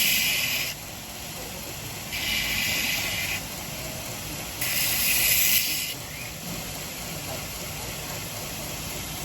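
Belt grinder running with a 120-grit belt while a stainless cleaver blade is pressed against it, giving a high grinding hiss in three passes of about a second or so each. The first pass is already under way and ends just after the start, the other two come about two and five seconds in. The grinder runs on steadily between the passes.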